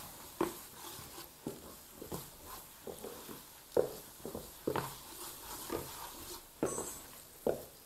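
Wooden spoon stirring and scraping a thick starch-and-butter paste against the bottom and sides of an old aluminium pan on low heat, in short irregular strokes about once or twice a second. The starch is being toasted in the butter, the first stage of making hasude.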